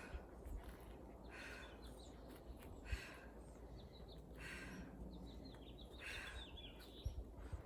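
Small birds chirping over outdoor ambience, with puffs of a person's hard breathing about every second and a half during the exercise, and two dull thumps of feet landing, about three seconds in and near the end.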